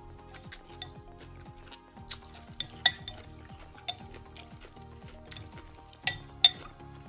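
Eating utensils clinking and scraping against a bowl of noodle soup, with a sharp clink about three seconds in and two close together near the end, over steady background music.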